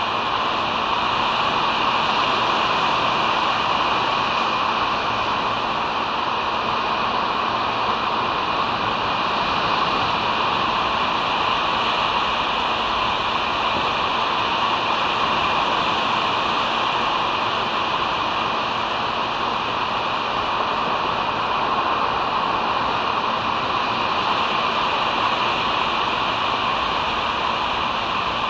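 Steady, even hiss from a bald eagle nest camera's outdoor microphone, with a faint low hum underneath and no eagle calls.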